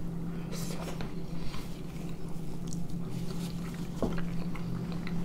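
Two people chewing boiled beef pelmeni close to the microphone: soft wet biting and chewing with a few faint clicks, over a steady low hum.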